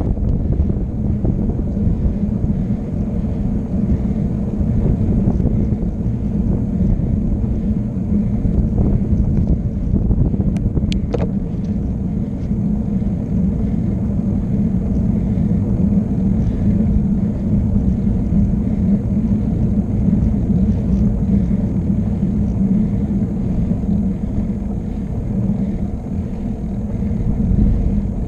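Wind buffeting the microphone over a steady low road rumble during a fast downhill descent. A brief high squeal comes about eleven seconds in.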